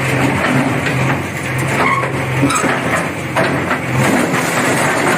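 JCB backhoe loader's diesel engine running as its bucket and arm push down a brick wall, with bricks and masonry clattering and knocking as they fall.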